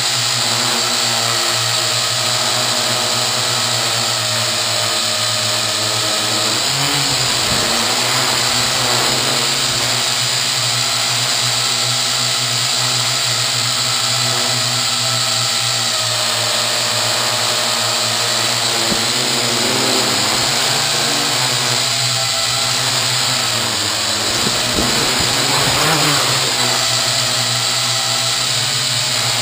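Small toy quadcopter's motors and propellers whining steadily at close range, heard from the camera mounted on the craft. The pitch shifts several times as the throttle changes.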